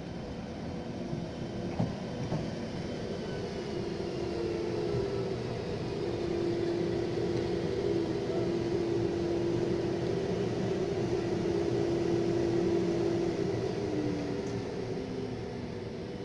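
ČD class 440 RegioPanter electric multiple unit pulling in and braking to a stop, with a rumble of wheels on rail. Over the rumble its motors give a humming whine that steps in pitch and then falls as the train slows near the end. There is one short knock about two seconds in.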